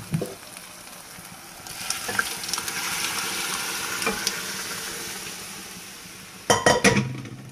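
Cooked whole moong dal poured into a hot pan of fried onion-tomato tadka, hitting the hot masala with a loud sizzle that starts about two seconds in and slowly dies away. A few sharp knocks of metal on the pan come near the end.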